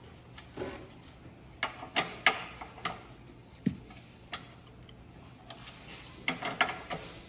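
Sharp metallic clicks and knocks from hands working the fittings of a stopped Kubota diesel-driven air compressor. They come scattered through the first half, then in a quick cluster of clunks near the end as a starting crank handle is fitted to the engine.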